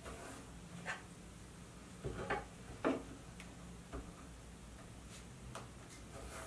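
A pencil scratching in several short, faint strokes along the blade of a combination square on a wooden board, drawing lines to check whether the square is true.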